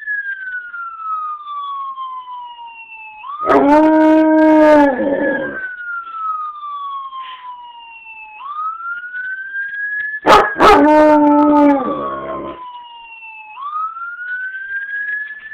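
Wolf hybrid howling twice, each howl lasting about two seconds, over a siren sound effect wailing slowly up and down from a laptop speaker. The howls are the loudest sound: the first comes about three and a half seconds in, and the second about ten seconds in, starting just after a sharp click.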